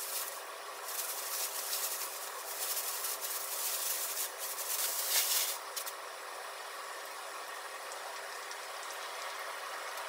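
Plastic bag crinkling and rustling in several bursts as marinated chicken pieces are tipped out of it, over a steady background hum; the rustling stops about six seconds in, leaving only the hum.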